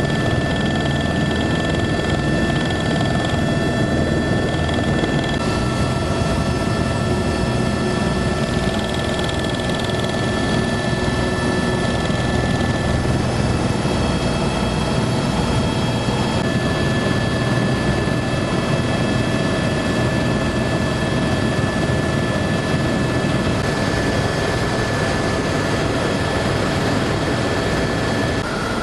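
Tour helicopter heard from inside the cabin during take-off and climb-out: steady, loud turbine and rotor noise with several steady whining tones over a dense rumble.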